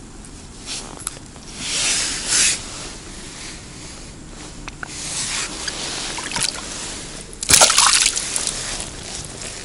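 Water sloshing and streaming off the mesh of a wire-ringed fishing keepnet as it is worked in the river's shallows, in several rushes, with a sharp splash about three-quarters of the way through.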